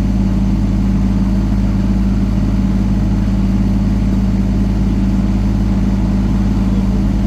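Mini excavator engine running at a steady speed, a constant loud hum with no change in pitch.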